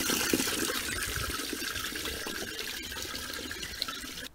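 Washing machine waste water pouring from an outside waste pipe and splashing onto a drain grate in a steady rush, running freely with no blockage. The rush eases slightly, then stops suddenly near the end.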